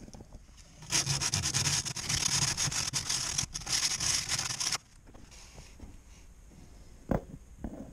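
Abrasive rubbing by hand on a rust spot on the bare sheet-steel body inside a Subaru Impreza, a rough scratchy scrubbing lasting about four seconds, then a single sharp click near the end.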